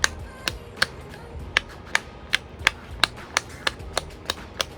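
Silicone pop-it fidget toy having its bubbles pressed through one after another: a string of sharp pops, about three a second.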